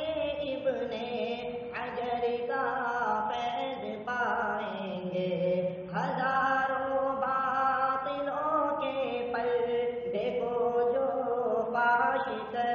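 A male voice singing a wordless, chant-like line of an Urdu farewell tarana, holding long notes that glide from pitch to pitch.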